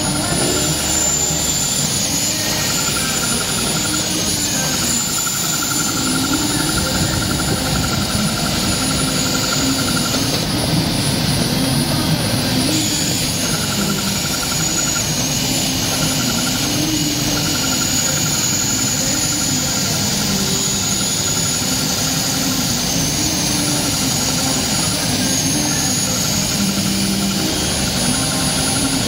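Morgan Next 50HM automatic cutter running: a loud, steady rushing machine drone, with fainter tones that step up and down and come and go as the gantry and cutting head move. It is working again with its error 01 bypassed by a temporary fix.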